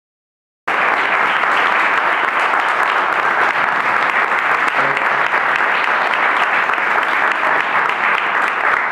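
Audience applauding steadily, cutting in abruptly about a second in after dead silence.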